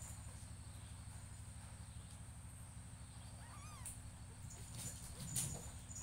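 A nursing mother cat purring steadily, a low, fast pulsing. A brief high chirping call about three and a half seconds in, and a short rustle of the kittens shifting about five seconds in.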